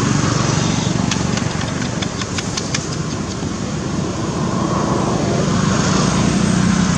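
An engine running steadily, a little louder towards the end, with a quick run of light clicks about one to three seconds in.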